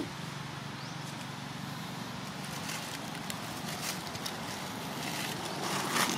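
Dry leaves rustling and crackling as a macaque forages in the leaf litter, the crackling growing louder near the end, over a steady low hum like a distant engine.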